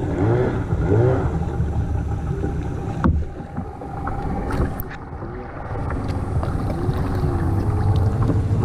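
Distant voices of people calling and chattering at a crowded river take-out, over a low steady rumble, with a sharp knock about three seconds in.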